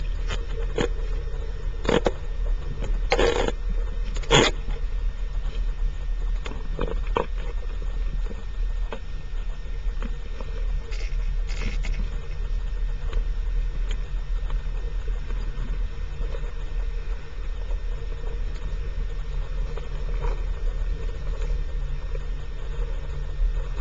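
Underwater ambience: a steady low rumble, with several sharp clicks or knocks in the first few seconds and two more about eleven to twelve seconds in.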